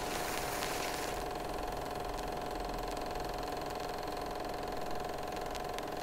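A steady mechanical hum with a constant tone, with a few faint ticks.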